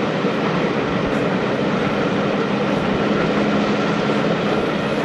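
Railway passenger coaches running along the line, heard from an open carriage window: a steady rumble of wheels on rail with rushing air.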